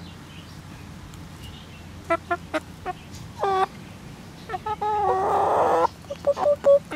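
Chickens clucking in short calls, in little groups, with one longer, harsher squawk about five seconds in that is the loudest sound.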